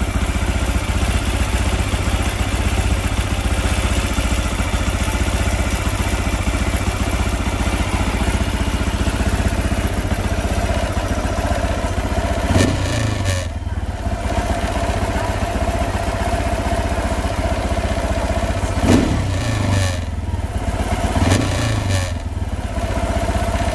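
AKT 250 TT AdvenTour motorcycle engine idling steadily, then briefly blipped three times in the second half, each rev rising and falling quickly back to idle. The front fairing vibrates with the engine.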